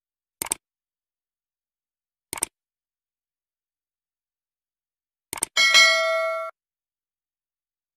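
Sound effects of a like-and-subscribe animation: three sharp clicks for the button taps, about two seconds apart, the last followed by a bright bell ding that rings for about a second and cuts off, the notification-bell chime.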